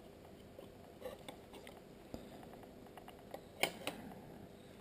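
A few faint clicks and taps from small plastic camera parts being handled, the sharpest two close together near the end.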